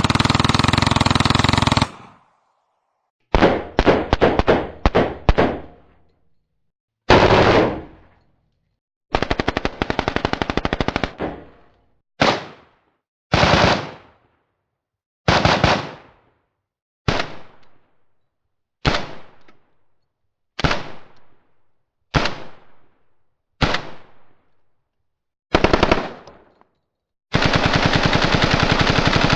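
M4 rifle gunfire sound effect: about a dozen bursts of rapid automatic fire, some long and many short, each separated by silence and each trailing off in a brief echo.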